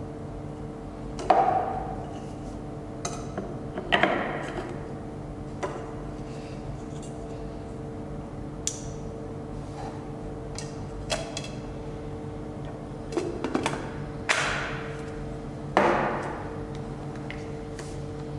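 Hard plastic parts of a mini food chopper (clear polypropylene bowl, blade unit and motor housing) being handled, set down and fitted together: scattered knocks and clicks, the loudest about a second in, around four seconds in and in a cluster near the end, over a faint steady hum.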